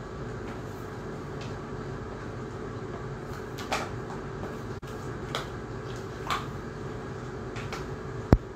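A puppy chewing and gnawing a plastic push-broom head: scattered short clicks and scrapes of teeth and bristles on plastic over a steady background hum, with one loud sharp knock near the end.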